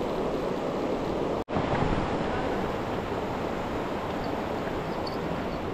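Steady rush of river water, a continuous noise with no pitch, which drops out for an instant about one and a half seconds in.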